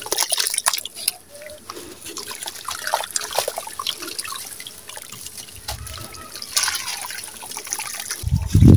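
Damp brown sand crumbled between the fingers and dribbling into a shallow puddle of water: gritty crackling with trickling and dripping. A duller thump comes near the end.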